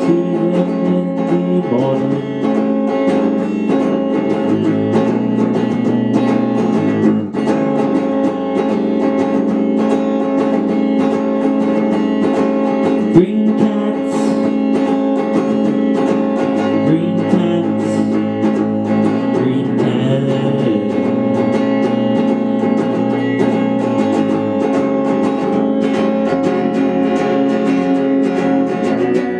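Electric guitar played through a small amplifier: continuous strummed chords and picked notes, with one sharp accent about 13 seconds in.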